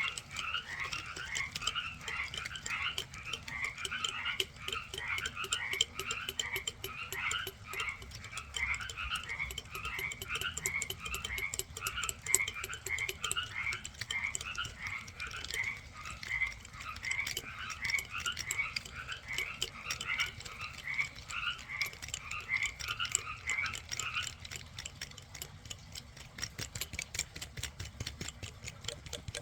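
A small animal calling in a long run of short chirps, about three a second, over a fine steady clicking. The calls stop about 24 seconds in.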